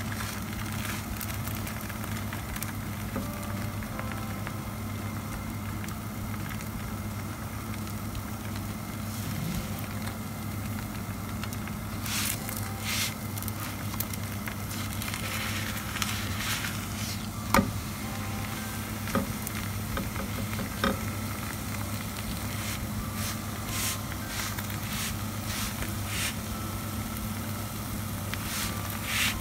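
Frozen paratha sizzling gently in a little oil on a tawa over a low flame, pressed now and then with a silicone spatula, with scattered crackles and one sharp click past the middle. A steady low hum runs underneath.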